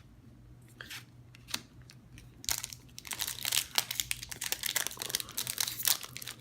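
Foil Pokémon booster-pack wrapper crinkling loudly as it is handled and opened, starting about two and a half seconds in after a few light taps.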